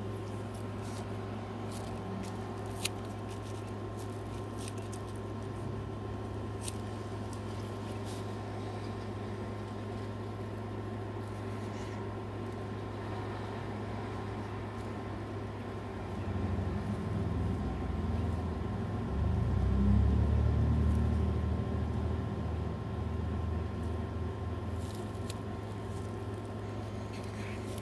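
Steady low mechanical hum, with a deeper rumble that swells about sixteen seconds in, peaks around twenty seconds and fades by about twenty-four seconds. Two sharp clicks about three and seven seconds in.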